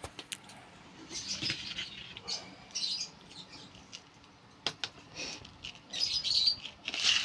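Irregular scraping and light clicks of a spoon mixing moist soft food in a bowl, with a few short high chirps from African lovebirds, the clearest late on.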